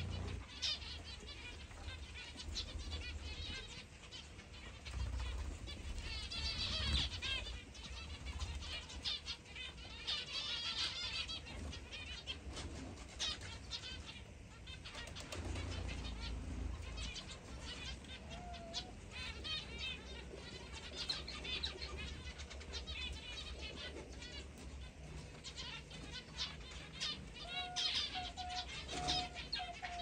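A flock of aviary finches, zebra finches among them, calling in quick repeated chirps that come in waves. Wing flutters and a steady low rumble run beneath, with a few short low notes near the end.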